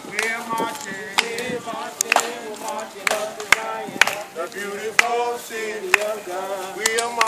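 A congregation singing together, with handclaps keeping time at about two claps a second.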